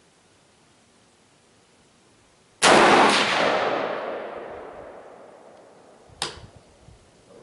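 A single shot from a Sig Sauer M400 AR-15 in .223 Remington: a loud crack whose echo rolls away and fades over about three seconds. A much fainter, short sharp crack follows a few seconds later.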